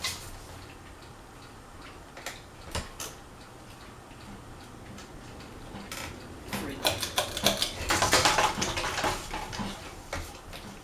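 Craftmade Phoenix ceiling fan running on high, with irregular metallic clinks and rattles that thicken into a dense clatter about two-thirds of the way through, over a faint low hum.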